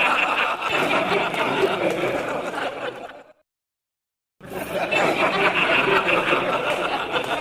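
A group of people laughing together, many voices overlapping with some chatter. The laughter fades out about three seconds in, about a second of silence follows, and then the group laughter starts again.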